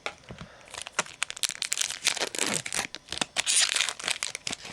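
Trading-card pack wrapper being crinkled and torn open by hand, a quick run of sharp crackles.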